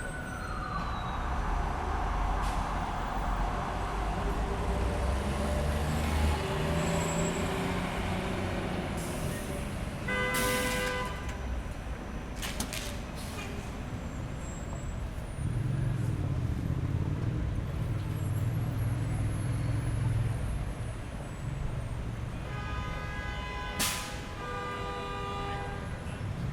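City street traffic: a steady rumble of passing vehicles, with a siren dying away in the first second, car horns honking about ten seconds in and again near the end, and a heavier engine rumble in the middle stretch.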